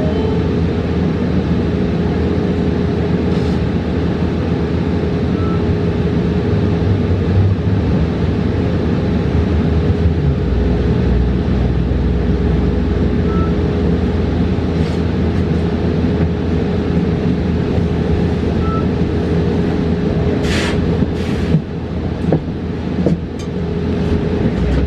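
Cabin noise of a 2022 New Flyer XE40 battery-electric bus on the move: steady road and drive rumble with a constant tone running through it. Several short hisses come about four-fifths of the way through.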